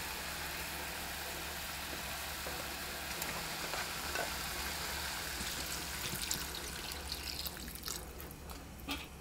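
Beef and seasonings sizzling in a pot, a steady hiss, with a few clicks as sliced radish goes in and water poured into the pot near the end.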